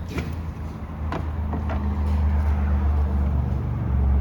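A low engine-like hum that grows louder, with a few light clicks in the first couple of seconds.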